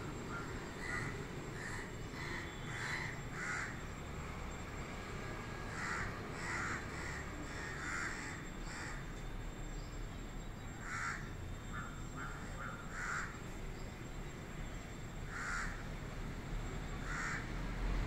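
A crow cawing: short caws in clusters of two to four, repeated every couple of seconds, over a steady low background rumble.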